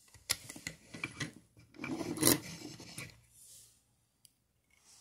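Two die-cast toy cars being gripped and turned over in the fingers: a run of small clicks and rubbing scrapes, loudest a little after two seconds in, dying away to a faint tick or two after about three seconds.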